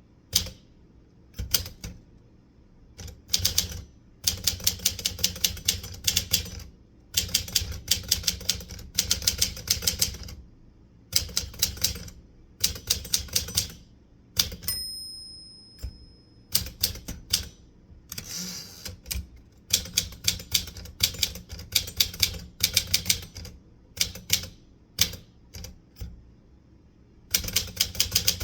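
Manual typewriter typing in rapid bursts of sharp keystrokes with short pauses between words and lines. About halfway through, the margin bell dings once and rings out. A few seconds later the carriage is returned with a brief rasping sweep, then the typing resumes.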